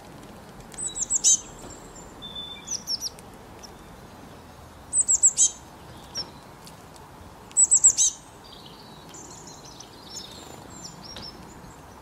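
Small songbirds chirping: three quick bursts of very high, falling chirps, about a second, five seconds and seven and a half seconds in, with a softer twittering near the end.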